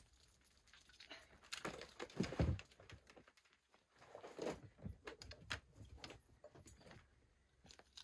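Footsteps on gravel and the irregular knocks and scrapes of camping gear being handled, with one louder thud about two and a half seconds in.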